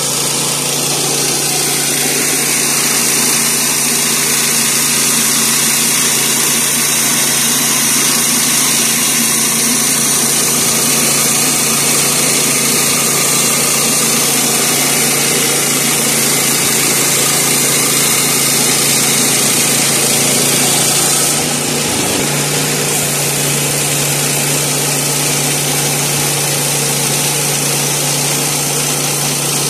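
Woodland Mills HM122 portable bandsaw mill's 7 hp single-cylinder gasoline engine running steadily under load as its band blade cuts along a sycamore slab. About two-thirds of the way through, the sound steps down slightly in level.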